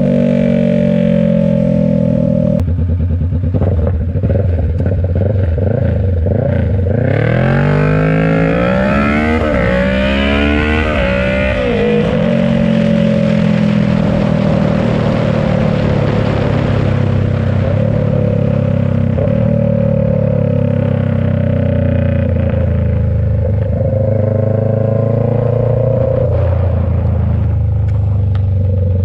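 Kawasaki Ninja 650's parallel-twin engine running loud through a short, muffler-less straight-pipe exhaust. About a third of the way in it revs up in several rising sweeps that break and climb again, then settles into a steady drone with a slow rise near the end.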